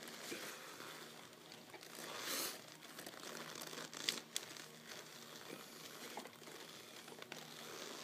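Stiff leather clothing and a laced leather tall boot rustling as they are moved and handled, with a louder rustle about two seconds in and two sharp clicks a little after four seconds in.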